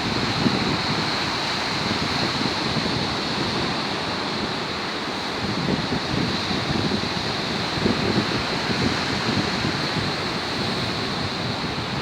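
Rough sea surf after a storm: waves breaking and washing ashore in a continuous roar that swells every few seconds, with wind buffeting the microphone.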